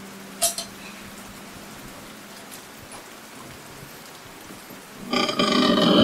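A steady rain-like hiss, with a sharp click about half a second in. Near the end a loud, held pitched sound cuts in and lasts a little over a second.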